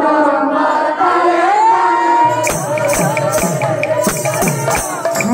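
Women's voices singing a Sambalpuri kirtan in sustained notes. From about two seconds in, mridanga drum strokes with falling low tones and ringing cymbal clashes join the singing in a quick rhythm.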